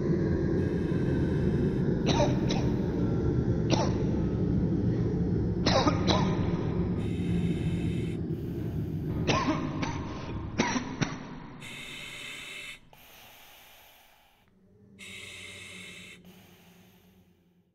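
Abstract film sound design: a dense low rumble with sharp clicks scattered through it, fading after about eleven seconds into quieter hissing sounds that cut in and out abruptly.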